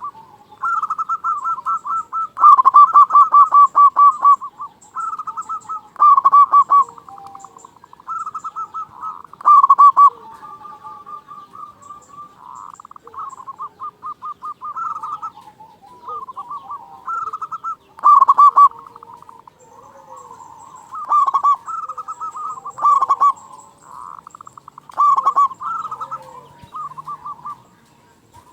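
Zebra dove (perkutut) cooing loudly: phrase after phrase of quick, pulsed notes, repeated every second or two, with softer calls overlapping between them.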